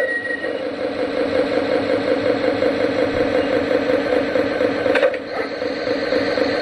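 Simulated engine sound from the Proto-Sound 2.0 speaker of an MTH RailKing Galloping Goose O gauge model railcar, running steadily as it moves slowly along the track. A brief click about five seconds in.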